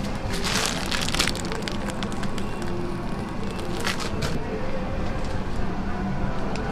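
Whipped cream squeezed from a piping bag, a short hissing squirt about a second in, over a steady low hum and light clicks of handling on the counter.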